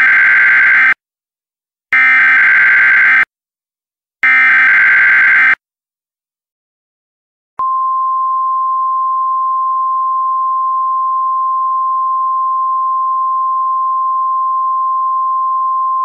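Emergency Alert System SAME header: three bursts of buzzing digital data tones, each a little over a second long, carrying the coded severe thunderstorm warning. After about two seconds of silence, a single steady attention tone starts about halfway through and holds, signalling that a spoken alert message follows.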